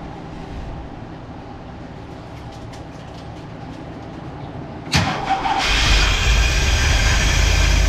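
Ford 302 small-block V8 catching with a sudden burst about five seconds in, then running steadily and much louder. The engine is freshly installed with its ignition timing not yet right; the owner suspects the timing and the firing order.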